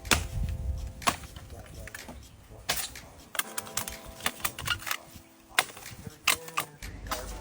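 A series of sharp, irregular wooden knocks and cracks, about ten spread unevenly over several seconds, over a low rumble.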